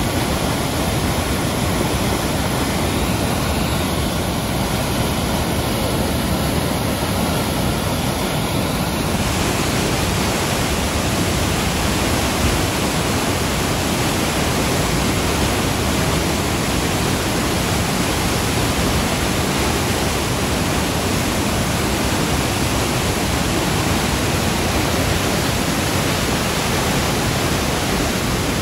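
Muddy flash-flood water rushing and cascading over rock in a narrow channel: a loud, steady rushing noise that does not let up.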